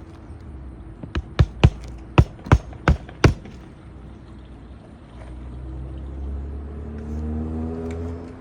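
Hammer striking roofing nails, seven quick blows over about two seconds, as the repaired asphalt shingle is nailed back down. From about five seconds in a low engine-like drone comes up and rises in pitch near the end.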